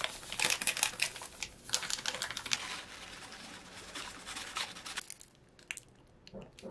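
Plastic food packets crinkling and rustling as they are torn open and emptied into a bowl, with dense crackling that turns quieter, to scattered ticks, about five seconds in.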